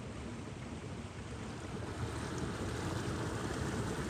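Water of a small creek running under the ice, a steady rushing that grows a little louder about halfway through.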